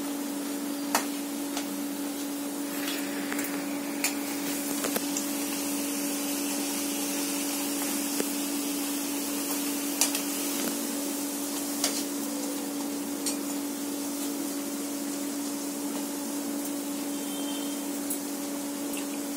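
Oil sizzling steadily as batter-coated water lily flower fritters deep-fry in a steel kadai, over a steady low hum. Several sharp clicks of the metal slotted spoon against the pan as the fritters are turned.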